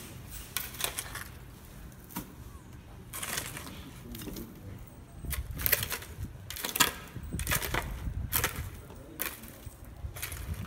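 Repeated crunching scrapes in stony, gravelly dirt, a few scattered early on, then coming roughly once a second in the second half.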